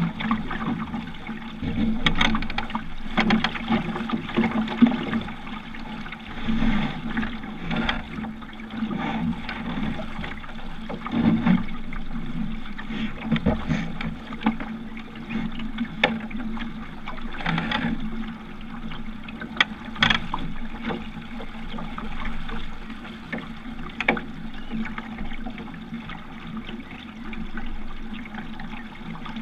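Water slapping and gurgling against a sailing dinghy's hull as it moves through the river, heard close up from the foredeck. Irregular sharper slaps stand out over a steady wash.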